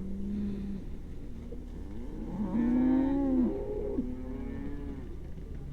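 Cattle mooing: several drawn-out calls one after another, the loudest a little under halfway through.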